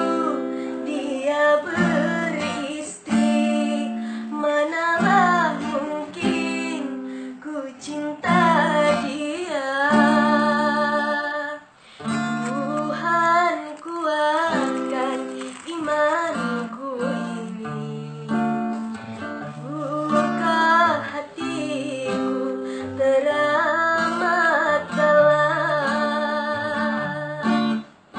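A woman singing a song with vibrato over strummed acoustic guitar.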